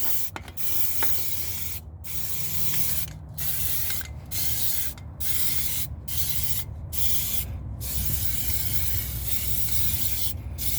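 Aerosol can of spray primer hissing in short bursts, each cut off by a brief pause about once a second, then one longer spray near the end: light sweeping coats of primer going on.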